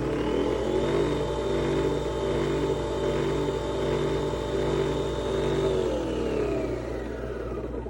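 Nespresso Vertuo Pop+ spinning its capsule at high speed while brewing: a machine whine that finishes rising about a second in, holds steady, then winds down over the last two seconds.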